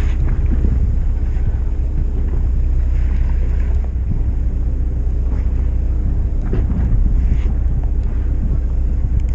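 Fishing boat's engine running steadily, a continuous low rumble with a steady hum, with wind buffeting the microphone.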